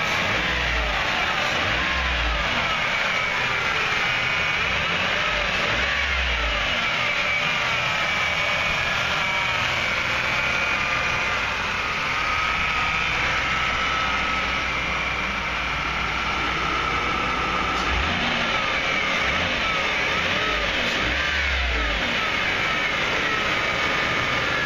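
1998 Ford Windstar's 3.8-litre V6 running steadily, heard from the open engine bay, with faint wavering whines over its steady hiss.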